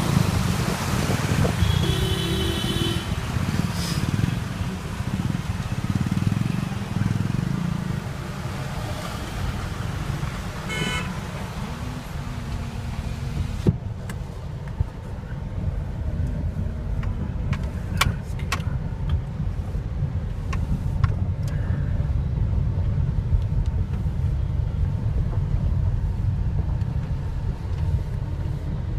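Road traffic with car horns tooting a few times in the first half, over a steady low rumble. About halfway through, the high hiss drops away suddenly and the rumble carries on alone, with a few sharp clicks.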